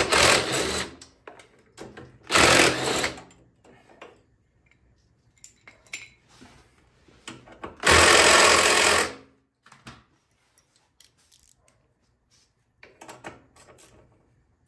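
Power drill/driver running in three short bursts, the last and longest about eight seconds in, as it backs screws out of the generator's plastic housing brackets, with small knocks of parts being handled between bursts.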